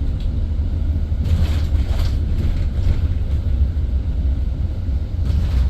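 Steady low rumble of road and running noise inside a moving driverless bus, with a few faint ticks about one and a half to two seconds in.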